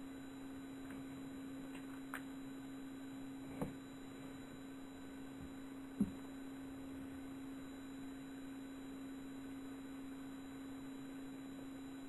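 A steady, single-pitched hum over faint hiss, broken by a few short clicks about two, three and a half and six seconds in; the click near six seconds is the sharpest.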